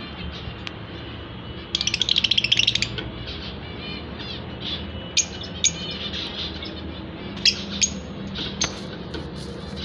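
Fischer's lovebirds calling: a rapid chattering burst lasting about a second, near two seconds in, then a few sharp, short, high chirps scattered through the rest.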